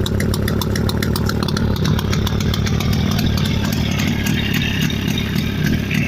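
Freshly rebuilt Jawa 350 type 638 two-stroke twin-cylinder engine idling steadily with a fast, even beat.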